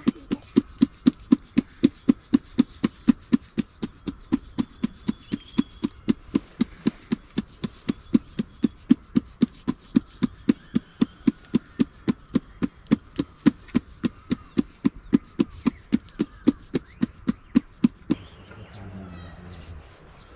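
Steady rhythmic knocking, about three dull strokes a second, that stops abruptly about eighteen seconds in; a faint animal call follows near the end.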